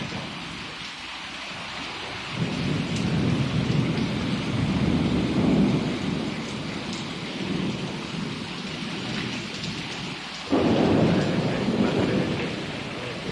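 Heavy rain falling steadily with thunder rumbling over it. One long rumble builds about two and a half seconds in, and a louder crack of thunder breaks in suddenly about ten seconds in and rolls on.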